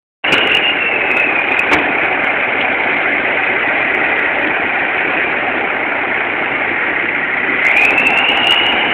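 Large articulated tractor's diesel engine running steadily, with a high whine that dips in pitch about a second in and climbs again, a little louder, near the end as the engine picks up.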